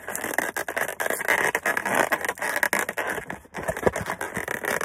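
A cardboard Pokémon TCG collection box being torn and pried open by hand: dense tearing and scraping with many small clicks, pausing briefly about three and a half seconds in.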